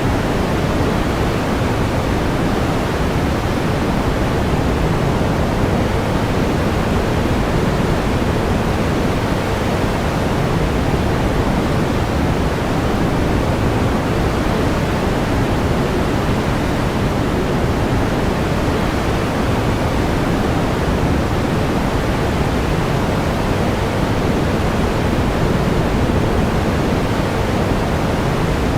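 Steady pink noise: an even, unchanging hiss weighted toward the low end, like a distant waterfall.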